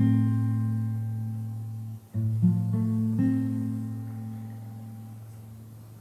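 Background music: acoustic guitar chords strummed and left to ring out slowly, with a fresh chord about two seconds in and another about three seconds in.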